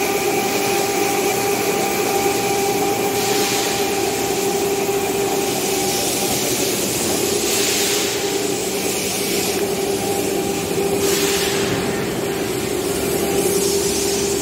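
Electric motors of a four-post locomotive lifting jack running with a steady hum while a locomotive body is raised off its bogies. Over the hum come a few louder spells of hiss.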